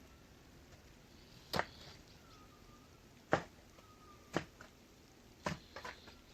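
A handful of short, sharp knocks at uneven intervals, a shovel striking and scraping as soil is shovelled onto the flat stones of an ondol floor.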